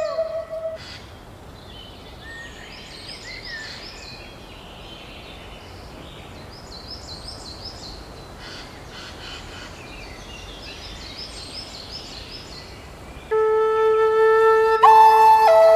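Flute-like background music cuts off within the first second, leaving birds chirping in short repeated phrases over a steady outdoor hiss. The flute music comes back loudly about two seconds before the end.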